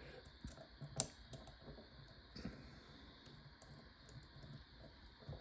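Faint, scattered light clicks and taps, with a sharper click about a second in: a lock and small tools being handled on a picking mat.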